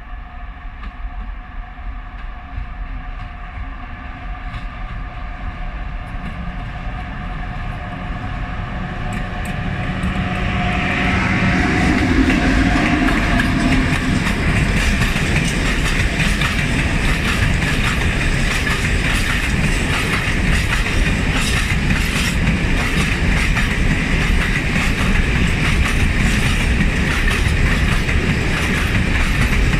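A train approaches and runs past, closing in with a steady multi-tone hum that grows louder. From about eleven seconds in, the wheels rumble and clatter over the rail joints as the cars go by.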